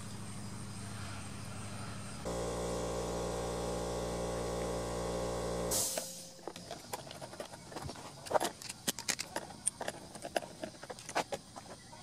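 Background music of sustained chords, which stops about six seconds in. It is followed by a run of sharp clicks and taps from hands working on the push mower's engine.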